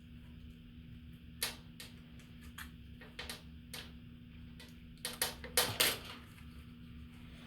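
Test run of a Department 56 Christmas Candy Mill's replacement 12 V AC gear motor and belt drive: a steady low hum with irregular clicks and ticks from the mechanism, several in quick succession about five to six seconds in.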